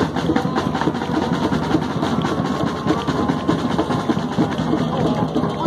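Drums beaten in a fast, irregular run of strikes, with some hand-clapping, as a crowd shows approval.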